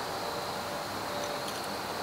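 Steady background hiss with a faint, high, continuous insect drone.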